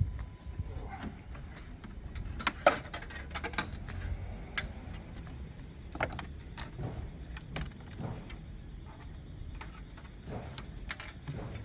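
Scattered light metallic clicks and rattles of tie wire and wiring being handled, with the loudest click about two and a half seconds in, over a low steady background rumble.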